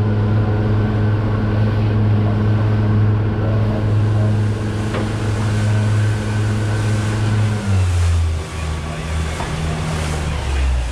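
Fishing boat's engine running steadily under way on the ocean, then throttled down about eight seconds in, its pitch dropping lower and less even, with wind and water noise underneath.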